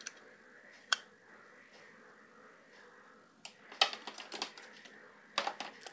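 Scattered sharp clicks and light knocks of small plastic and metal parts being handled: a USB Wi-Fi dongle pushed into a Raspberry Pi 2 board's USB port and the board turned over in the hand. There is one click about a second in and a cluster of them a little before four seconds in.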